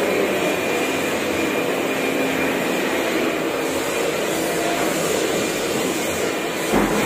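Steady mechanical noise with a low hum and a faint high whine, with a brief knock near the end.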